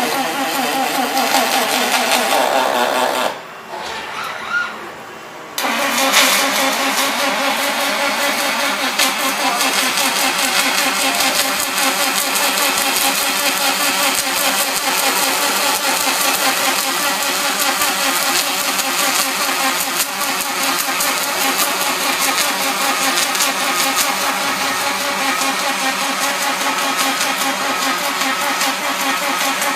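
Welding arc of an OTC Daihen Almega AX-V6L robot welding aluminum: a steady, loud buzz with hiss. The arc breaks off about three seconds in and restarts roughly two seconds later.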